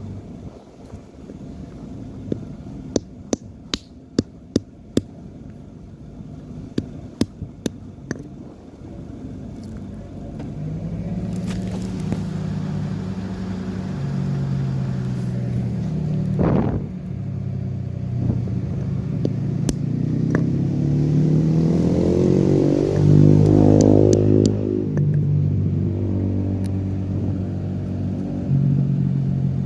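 A handful of sharp clicks or knocks, then from about ten seconds a vehicle engine running, rising in pitch as it revs around twenty seconds in and easing back down.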